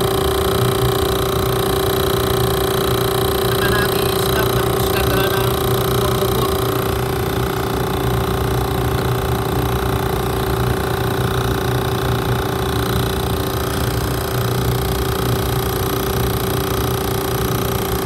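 Motor-driven pump running with a steady, even hum while it pulls the air-conditioning system down to vacuum before the refrigerant charge.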